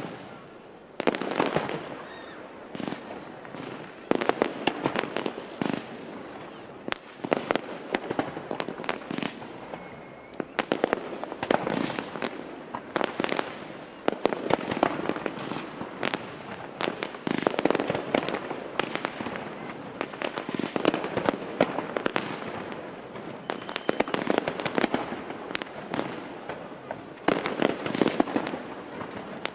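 Fireworks display: aerial shells bursting in a dense, irregular string of bangs, several a second, over a steady crackle, with no pause.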